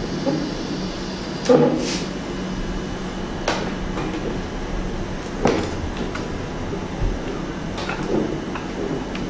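Knocks and clicks of metal rods and acrylic panels being handled and fitted together on a table: four or five separate knocks, the loudest about a second and a half in, over a steady low hum.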